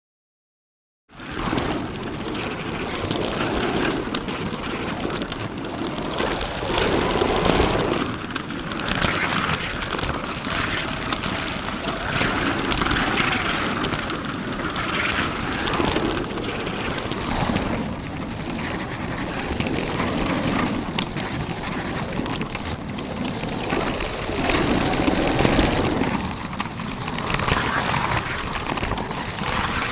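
Slot car running laps on a plastic track, heard through a camera mounted on the car: a continuous rushing, rattling rumble of motor, wheels and chassis vibration that starts about a second in and surges and eases as the car runs.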